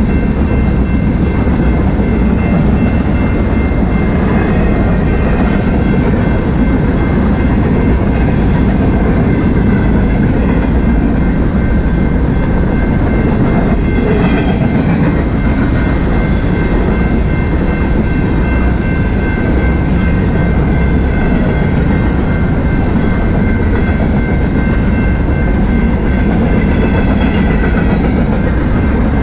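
Freight train cars rolling past a grade crossing, tank cars and then boxcars: a loud, steady rumble with wheels clattering over the rail joints.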